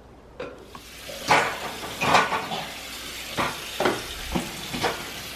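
Dishes and mugs clattering and clinking as they are handled at a kitchen sink, a knock every half second or so, over steadily running tap water.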